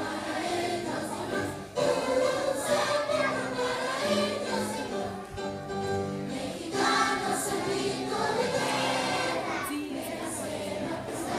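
A choir singing held notes, with music.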